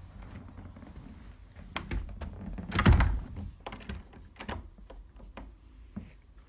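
Knocks and clicks of a door being handled, with one loud thunk about three seconds in, as of the door being shut, and smaller clicks after it.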